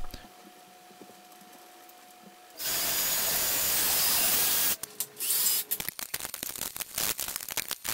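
Cordless drill boring a pilot hole up into a wooden ceiling stud, running steadily for about two seconds starting a couple of seconds in, then a run of short clicks and brief bursts.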